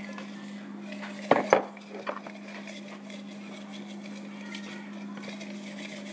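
A short clatter of tableware being set down and handled on a table, with a water glass among it, about a second and a half in, then a smaller knock just after. A steady low hum runs underneath.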